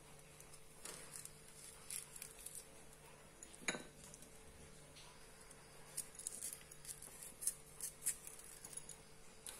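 Small kitchen knife slitting green chillies lengthwise in the hand over a ceramic bowl: faint scattered clicks and scrapes, with a sharper click a little under four seconds in and a run of small ticks near the end. A faint steady hum lies underneath.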